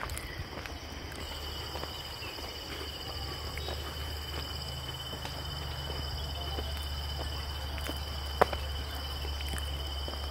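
Insects droning steadily at two high pitches, one of them with a fast pulsing buzz, under footsteps on a gravel and stone trail. There is a single sharp click about eight seconds in.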